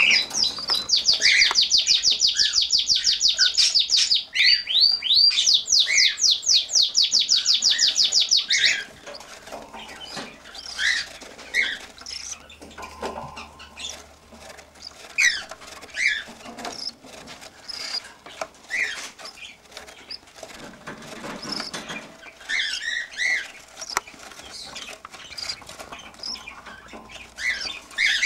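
Cockatiel chick calling: loud, fast runs of high chirps, about seven a second, with a short break about four seconds in, typical of a chick begging for food. After about eight seconds the runs stop and only quieter, scattered chirps follow.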